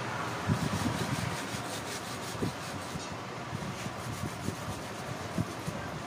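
A metal pipe rubbed back and forth on a concrete floor to grind it down, in repeated scraping strokes, with a few light knocks.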